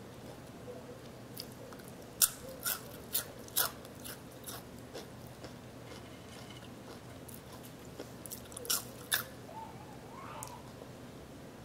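Crisp fried potato fries being bitten and chewed: a run of sharp crunches a couple of seconds in, then softer chewing, and two more crunches later on.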